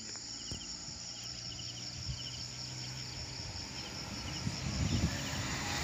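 Insect chorus: a steady high, fast-pulsing buzz with short chirps repeating about once or twice a second. Under it a low vehicle engine hum grows louder near the end.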